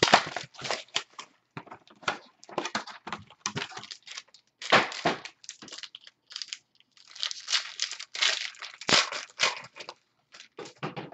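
Foil wrapper of a baseball card pack crinkling and tearing as it is handled and opened, an irregular run of crackles with short pauses.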